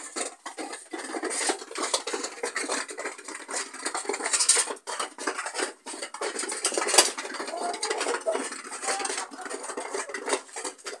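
Continuous, irregular clicking and clattering of small hard objects knocking together, with one sharper knock about seven seconds in.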